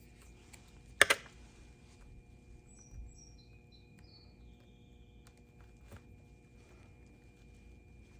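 A sharp double click about a second in, from hands working loose parts of a motorcycle's rear fender assembly, over a faint steady hum. Around the middle a bird chirps faintly several times, each chirp a little lower than the last.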